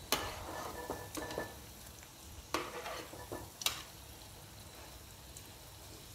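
Onion bhaji deep-frying in hot oil, sizzling steadily, while a metal slotted spoon scrapes and clinks against the kadhai as the fritters are turned over. The clatter comes in several short bursts over the first four seconds, then only the sizzling goes on.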